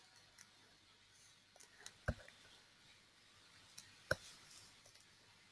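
Quiet room tone with a few faint clicks and two short soft knocks, about two and four seconds in: small handling noises at a computer desk.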